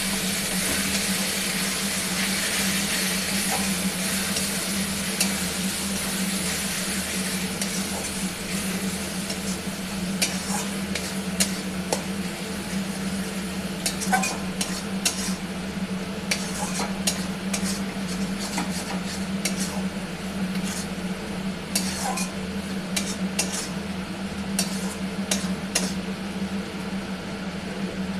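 Curry masala of onion, ginger-garlic paste and ground spices sizzling in oil in a pan while being stir-fried (kosha), with a spatula scraping and clicking against the pan. The clicks come more often after about ten seconds, over a steady low hum.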